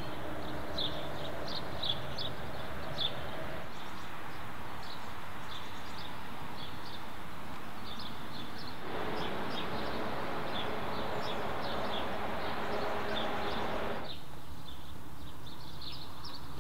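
Small birds chirping over and over, above a steady background rumble of engine and road noise. The rumble swells for about five seconds in the middle, then drops away abruptly.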